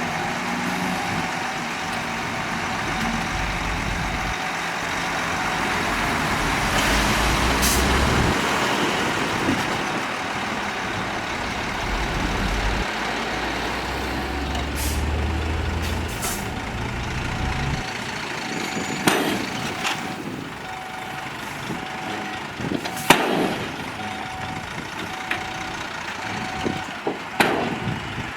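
Heavy diesel earthmoving machinery running steadily with a deep engine rumble. After about two-thirds of the time the rumble drops away, leaving a repeating beep and several sharp knocks.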